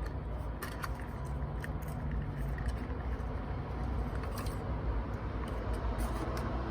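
Steady low rumble of city traffic, with scattered light clicks and taps of small objects being handled.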